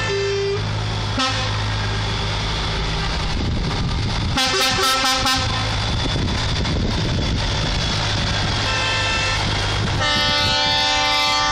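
Trucks rolling past at low speed with engines running, sounding their air horns: a few short pulsed blasts about four seconds in, a short one near nine seconds, and a long loud blast from about ten seconds on.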